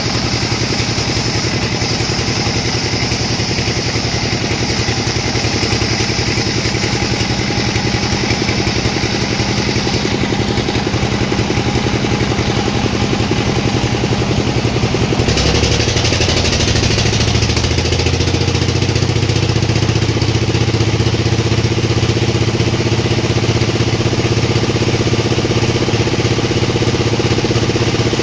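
Sawmill machinery running steadily, a continuous engine-like drone. About halfway through, its tone changes abruptly and grows a little louder.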